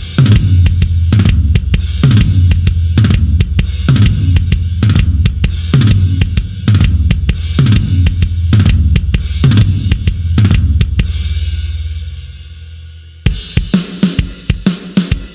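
Sampled rock drum kit from 'The Blasting Room Signature Series Drums' Kontakt library playing a groove of kick, snare and cymbals. About eleven seconds in, the groove stops on a ringing cymbal that fades out. Near the end a new, faster pattern of hits starts.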